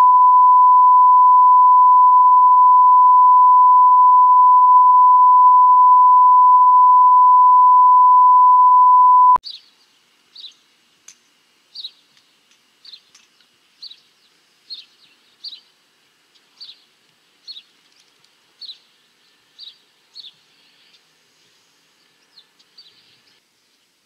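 A loud, steady 1 kHz line-up test tone that cuts off suddenly about nine seconds in. After it, a bird chirps faintly, short high chirps about once a second, over a faint steady high note.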